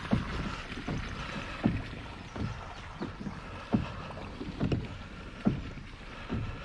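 Hobie Compass kayak's pedal drive being pedalled, giving a low knock roughly every three-quarters of a second over a steady low hiss of water and air.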